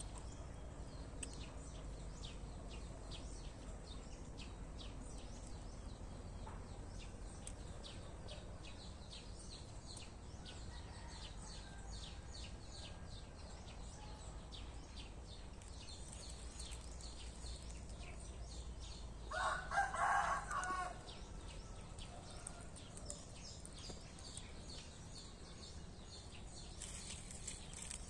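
A rooster crows once, about two-thirds of the way in, a single call lasting about a second and a half. Under it runs a fast, high ticking through roughly the first half and a steady low rumble.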